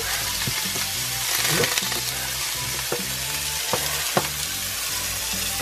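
Butter melting and sizzling in a hot nonstick frying pan, with a steady hiss and a few sharp pops now and then.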